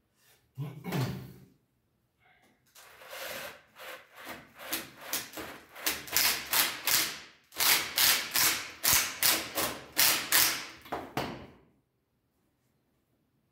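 Rough scraping strokes of a tool against the wooden door-frame corner, about two a second, growing louder over several seconds and then stopping. A single dull knock comes about half a second in.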